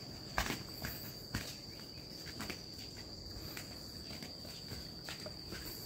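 Footsteps along a forest trail, a few quick steps and then sparser ones, under a steady high-pitched insect note.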